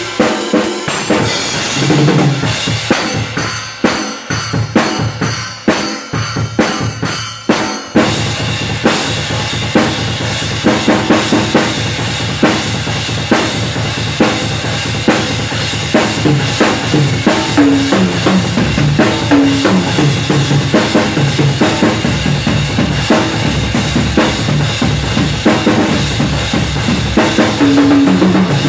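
Acoustic drum kit played hard and fast. The first eight seconds are broken fills with short gaps. After that the playing is continuous, with cymbal crashes ringing over rapid bass drum, snare hits and several tom runs that fall in pitch.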